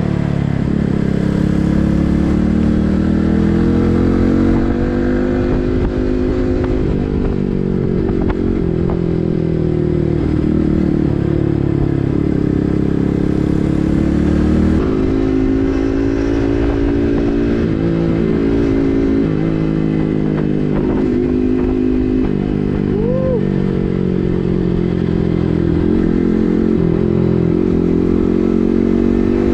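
Yamaha MT-15's single-cylinder engine through an SC Project full-system exhaust, running under way, its pitch rising and falling slowly with the throttle and shifting about halfway through.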